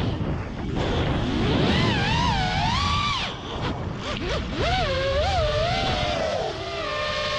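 FPV quadcopter's brushless motors (Lumenier 2206 2450kv spinning 5-inch props) whining, the pitch swooping up and down with throttle changes during flips and yaw spins, then holding steadier near the end, over a rush of wind noise.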